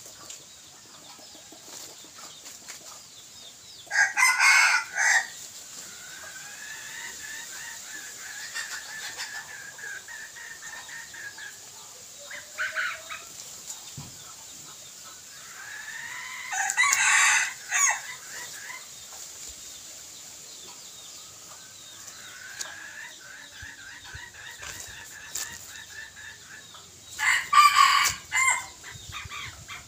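Red junglefowl (decoy) roosters crowing: three short, harsh crows about eleven seconds apart, with quieter calls in between.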